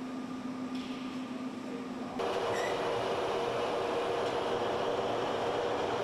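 Steady electronic-equipment hum, then a sudden switch about two seconds in to louder, steady aircraft-hangar machinery noise: a dense hiss with a steady hum in it.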